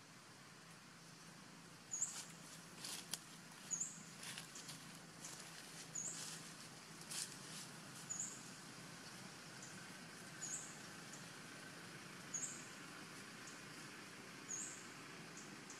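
A short, high-pitched chirp repeats about every two seconds over quiet forest background, with sharp crackles of leaves and twigs in the first half as monkeys climb through the tree branches.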